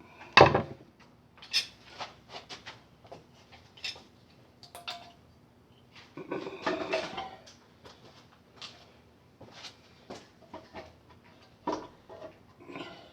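Clunks, clicks and scrapes of a cast-iron intake manifold being worked loose and lifted off a 428 Super Cobra Jet V8. There is a sharp knock just after the start, a longer squeaky scraping stretch about six seconds in, and another knock near the end.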